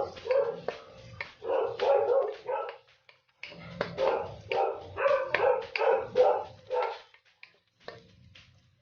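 A dog barking and yelping repeatedly in runs of short pitched calls, with a brief pause about three seconds in and fewer calls near the end.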